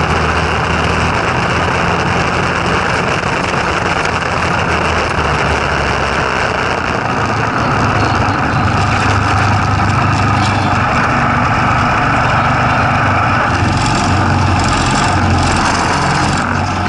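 Go-kart's Tecumseh four-stroke engine running steadily under way, its note rising a little about halfway through.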